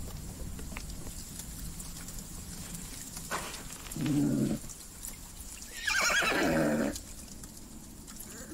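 A wounded unicorn crying out in pain, voiced with horse sounds: a short low groan about four seconds in, then a louder, longer wavering whinny about six seconds in.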